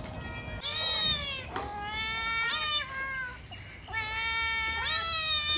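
Domestic cat meowing repeatedly: about five drawn-out meows, several rising and then falling in pitch.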